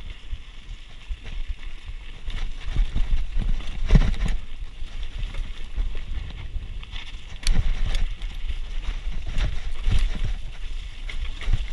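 Mountain bike ridden over a rough dirt and rock trail: wind rumbling on the microphone, tyres crunching over dirt and stones, and the bike rattling, with sharp knocks over bumps about 4, 7½ and 10 seconds in.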